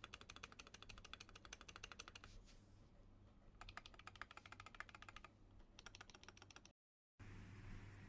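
Fast typing on a mechanical keyboard, rapid key clicks in three bursts of about ten keystrokes a second. After a brief dropout near the end, a steady low hum and hiss take over.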